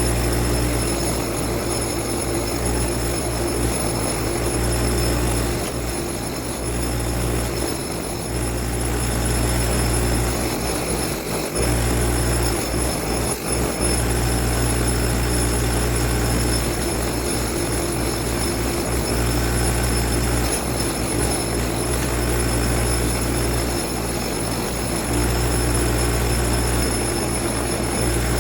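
An electric rotary power tool runs steadily with a constant hum and a thin high whine, dipping briefly in level a few times. It is cleaning and polishing a steel lug wrench after a vinegar rust soak.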